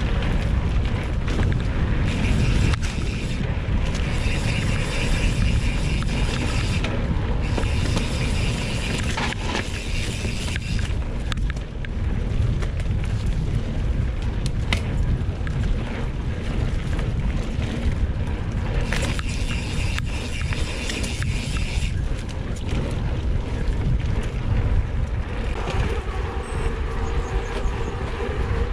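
Mountain bike ridden along a dirt trail: steady low rumble of wind on the microphone and tyres rolling, with a higher buzz coming and going in several patches. Near the end the bike rolls onto a concrete-slab path.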